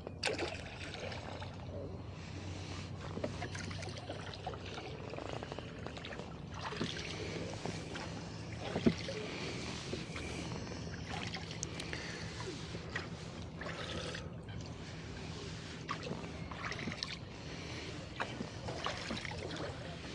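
Rowboat being rowed: oars dipping and pulling through the water, with knocks from the oarlocks and water moving along the hull. A sharper knock about nine seconds in.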